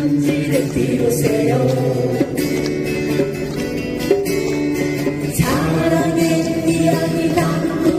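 Acoustic guitar ensemble strumming together while the players sing as a group, heard through the stage loudspeakers.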